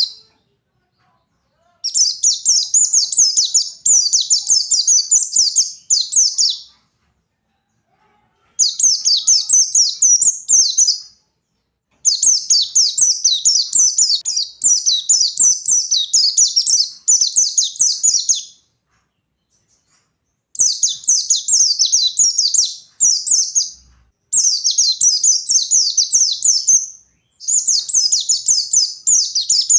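White-eye (pleci) singing its long, rapid, high-pitched twittering song in bouts of several seconds each, with short silent pauses between bouts.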